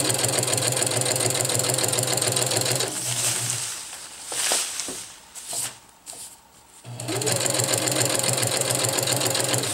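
Husqvarna Viking sewing machine with a walking foot running steadily as it stitches a seam in silicone-coated polyester tarp fabric. It stops about three and a half seconds in, while the slippery fabric rustles lightly as it is smoothed, then starts stitching again about three seconds later.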